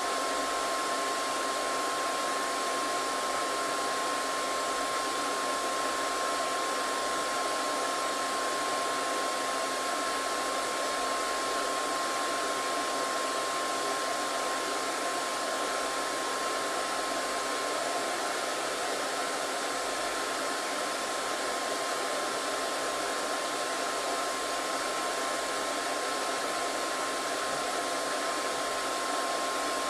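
Small electric blower motor running at a constant speed: an even rush of air with a steady high whine, unchanging throughout.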